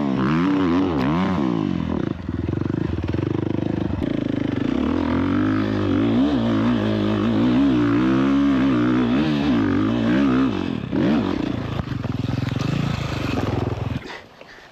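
Dirt bike engine revving hard on a steep hill climb, its pitch surging up and down with the throttle. From about eleven seconds in the sound turns rough and broken, with clattering, and about fourteen seconds in it cuts off suddenly as the climb ends in a crash.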